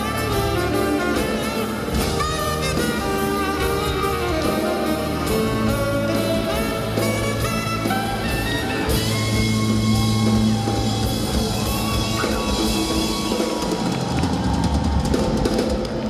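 Live band playing an instrumental section: a saxophone solo carries the melody over the drum kit and the rest of the band.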